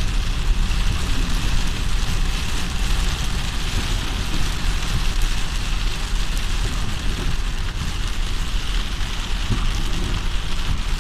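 Heavy rain beating on a moving car's roof and windscreen, heard from inside the cabin as a steady hiss, over the low rumble of the car's road and engine noise.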